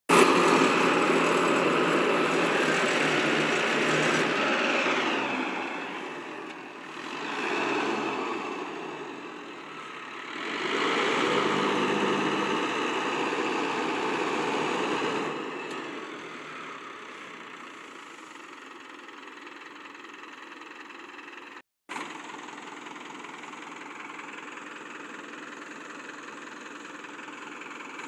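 Diesel engine of a Mahindra Novo 755 DI tractor-mounted paddy harvester running. It is louder for the first few seconds and again from about ten to fifteen seconds in, then settles to a lower, steady sound.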